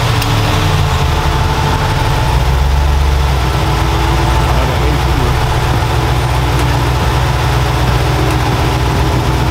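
Supercharged V8 engine idling with a steady, deep sound.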